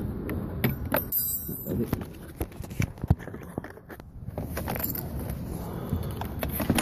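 Handling sounds as a small plastic door-panel retaining clip is worked back into place: scattered clicks, rattles and scrapes. There is a brief jingle about a second in and a sharper click about three seconds in.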